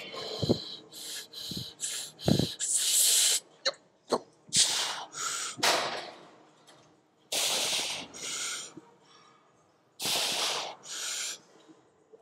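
A weightlifter's forceful, hissing breaths, pushed out in quick bunches during a heavy Smith-machine shoulder-press working set, the gaps between them growing longer toward the end as the reps get harder. A few dull knocks sound in the first couple of seconds.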